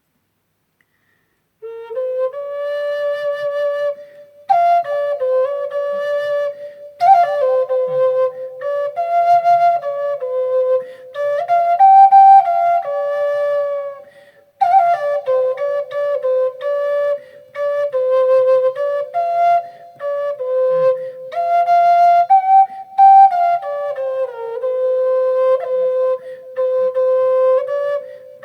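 Solo flute playing a slow melody. It starts after a short silence and pauses briefly about halfway through.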